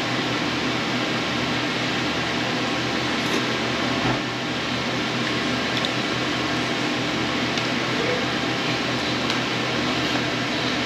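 Steady whir of an air-conditioning fan, with a single soft knock about four seconds in.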